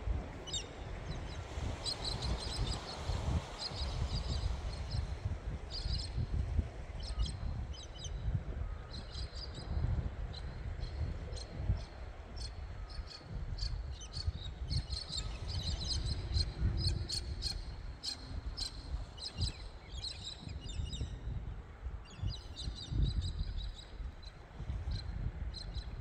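Birds chirping in the dawn chorus, with many short, high calls throughout, over a low, steady rumble of gentle waves washing on a rocky shore.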